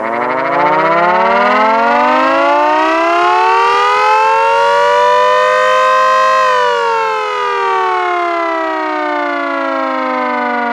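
Homemade chopper siren, a 3D-printed PETG rotor spun by a Harbor Freight grinder, wailing loud. Its pitch climbs steadily for about six seconds as the rotor spins up, then turns and falls smoothly as it winds down.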